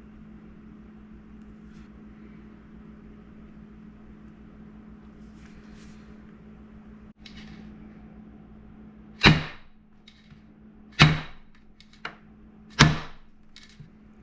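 A metal baking sheet of piped macaron batter banged down on a counter three times, about two seconds apart, each bang ringing briefly, to knock air bubbles out of the shells. A steady low hum runs underneath before the bangs start.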